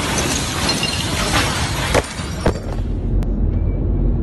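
Church interior struck by the Beirut explosion's blast wave: glass and ceiling debris shattering and crashing down in a dense clatter, with two sharp impacts about two and two and a half seconds in. About three seconds in this gives way to a steady low rumble inside a car.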